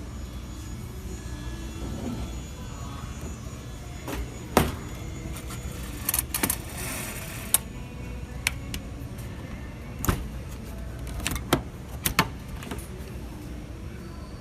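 A Frigidaire dishwasher running, a steady low hum with scattered sharp clicks and knocks through the middle and a short hiss about six to seven seconds in.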